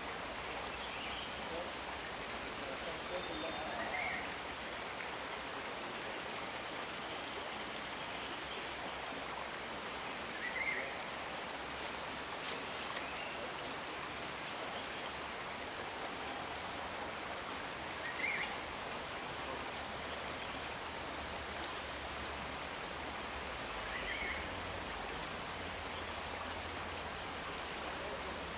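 Steady, high-pitched chorus of forest insects, pulsing slightly. A faint short chirp comes every six seconds or so.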